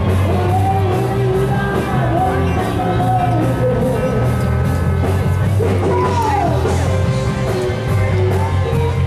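A live rock band playing loudly, with a singer over a steady bass line.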